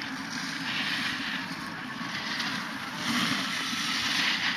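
Hiss of an alpine snowboard's edge scraping over packed snow as it carves turns, swelling twice, loudest near the end.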